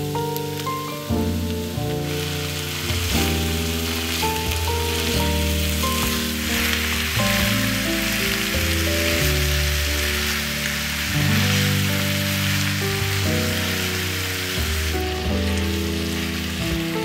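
Ground beef and chopped celery, carrot and onion sizzling as they fry in a nonstick pan, over background music with a plain melody.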